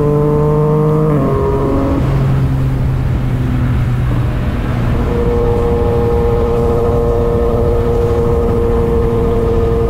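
Yamaha MT-09 inline-three motorcycle engine running under way at a steady pitch. Its note drops about a second in and holds steady again from about five seconds in. Wind rumbles on the bike-mounted microphone throughout.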